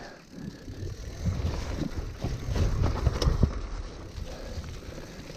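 Mountain bike rolling down a dry, rocky trail: tyres crunching over stones and dry leaves, with scattered knocks and rattles from the bike over the bumps.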